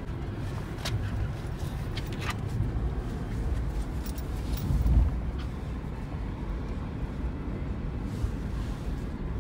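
Road and engine noise of a Toyota Roomy heard from inside its cabin while driving: a steady low rumble that swells briefly about halfway through, with a few light clicks in the first couple of seconds.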